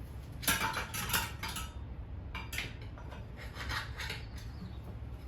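Metal clinking and scraping of tire-changing tools against a dirt bike wheel rim and sprocket while a tire is being worked onto the rim, in two bursts of several sharp clinks each, about half a second and two and a half seconds in.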